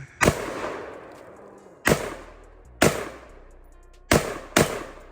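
Five single gunshots from an AK-47 pistol, fired one at a time at uneven intervals of about half a second to a second and a half, each followed by an echoing tail.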